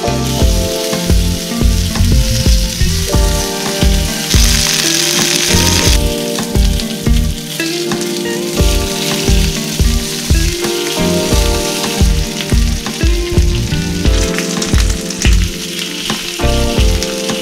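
Fennel wedges sizzling in olive oil in a stainless steel frying pan, heard over background music with a steady beat.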